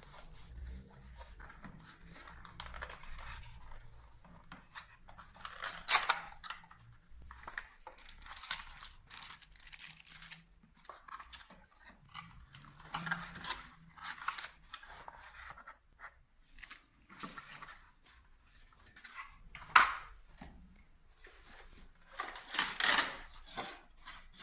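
Packaging being handled and opened: repeated rustling, crinkling and tearing of paper or plastic wrap, with two sharp knocks, the loudest about a quarter of the way in and again about four fifths in.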